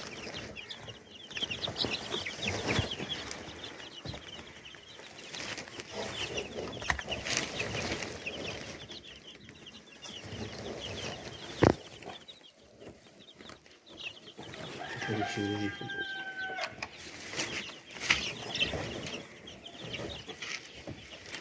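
Four-day-old chicks peeping in many short, high chirps throughout. There is one sharp knock near the middle, and a longer drawn-out call with a few steady tones at about fifteen seconds in.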